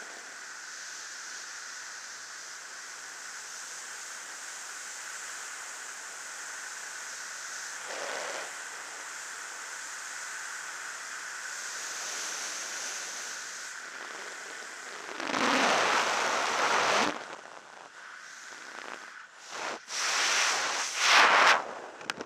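Freefall wind rushing steadily past a skydiver's helmet camera, with a faint steady whistle in it. From about fifteen seconds in, loud irregular buffeting and flapping as the parachute is deployed and opens.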